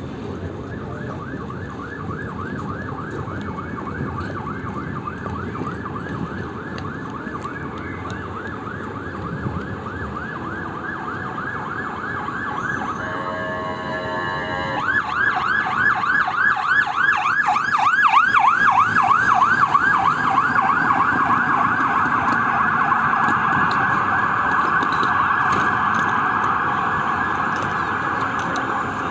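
Emergency vehicle siren in a fast rising-and-falling yelp. About halfway through it briefly switches to a stepped pattern, then comes back louder and slowly fades as the vehicle passes. Low street rumble runs underneath.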